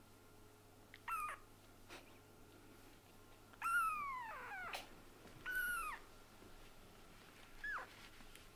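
A very young kitten mewing four times in thin, high calls. The two calls in the middle are the longest and slide down in pitch.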